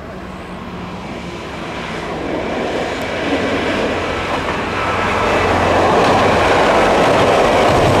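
Single-car Kyoto Tango Railway diesel railcar passing, its engine and wheels on the rails growing steadily louder as it approaches and runs onto a steel girder bridge.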